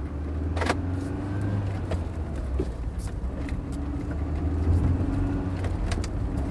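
2002 Mercedes-Benz C230 Kompressor with its supercharged four-cylinder M111 engine pulling away and gathering speed: a steady low engine hum growing slightly louder, with a few sharp clicks.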